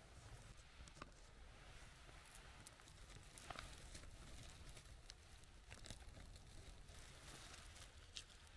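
Near silence: faint rustling in forest moss, with a few soft, scattered clicks from handling.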